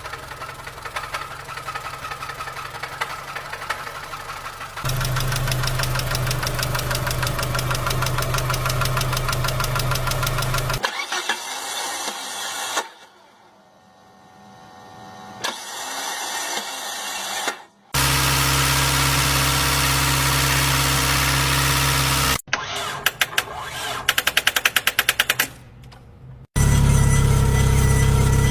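A run of separate car-engine recordings, cut abruptly one to the next, each running with an abnormal noise; several carry a fast, regular ticking or knocking over the engine hum. Near the end, a string of sharp clicks comes before a loud, steady engine.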